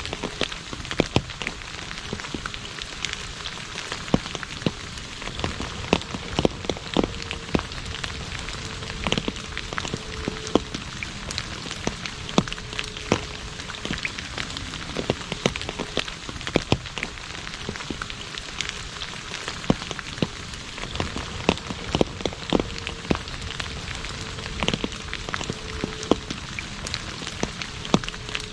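Steady rain falling on an asphalt road: an even hiss dotted with frequent sharp drop hits.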